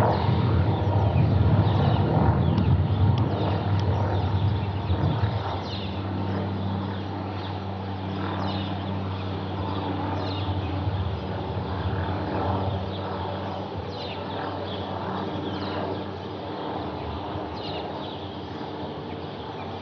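Light single-engine propeller aircraft droning overhead, a steady engine hum that is louder for the first few seconds and then eases off. Birds chirp throughout.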